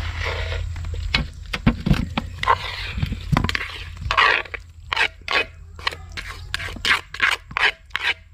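A spoon scraping through green papaya salad as it is tossed in a bowl, in quick regular strokes about three a second from about halfway through; before that, irregular clatter and rustling.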